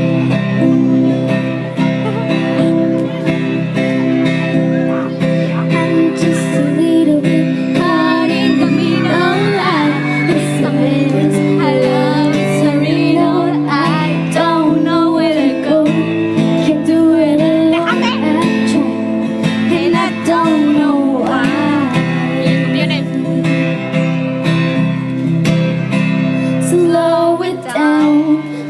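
A pop song played with strummed acoustic guitar. A female voice sings the melody from about eight seconds in.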